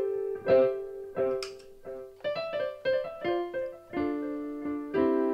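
Yamaha PSS-A50 mini keyboard playing a short phrase of separate notes, some held, run through a delay pedal.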